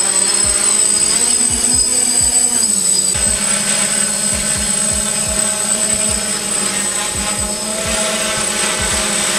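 DJI F550 hexacopter's six brushless motors and propellers buzzing steadily as it hovers, with a slight dip in pitch about three seconds in.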